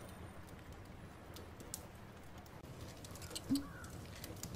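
Faint layered ambience: a steady low hum with scattered light clicks, and one short low tone about three and a half seconds in.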